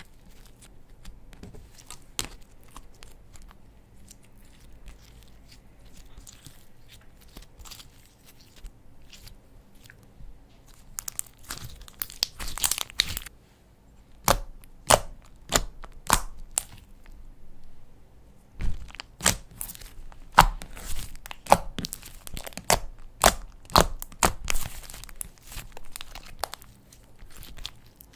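Slime being squeezed, stretched and pressed by hand: soft handling at first, then from about eleven seconds in a quick run of sharp pops and crackles as trapped air bursts out.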